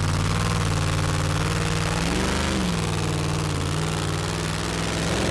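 Engine of a super modified two-wheel-drive pulling truck running at low revs as it walks the sled slowly off the line, with a brief rise and fall in revs about two seconds in.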